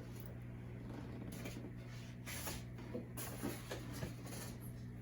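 Rustling and scraping of packing material being handled in short bursts while a model plane's wing is unpacked, over a steady low hum.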